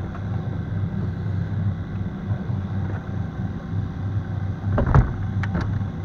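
70-horsepower outboard motor running at low speed with a steady low hum. A single sharp knock sounds about five seconds in.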